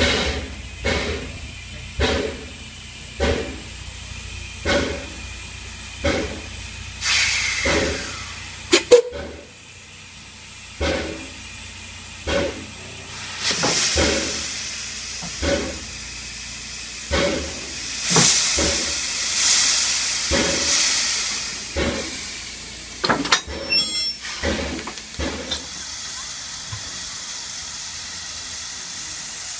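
Climax geared steam locomotive moving slowly: its exhaust chuffs at uneven intervals of about a second, with several longer hisses of steam venting from around the cylinders.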